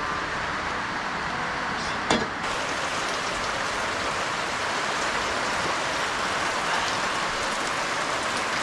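Heavy rain falling steadily, an even hissing downpour. A single short knock sounds about two seconds in.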